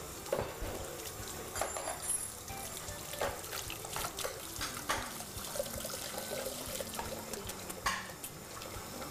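Kitchen tap running into a sink, a steady rush of water, with a few light knocks and clatters scattered through it.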